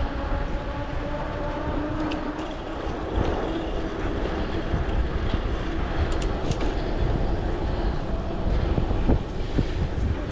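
Wind rushing over the microphone of a camera on a moving bicycle, with the steady rumble of the tyres rolling over rough, cracked asphalt.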